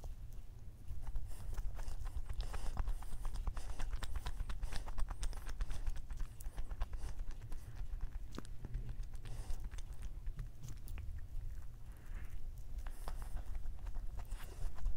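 Close-miked chewing of a soft doughnut with a crumbly topping: quick wet mouth clicks and smacks throughout, over a steady low hum.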